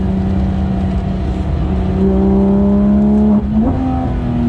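Porsche 991.2 GT3 RS's naturally aspirated flat-six engine pulling under acceleration, its pitch rising slowly. About three and a half seconds in the note breaks with a quick gear change, then settles higher and slowly falls.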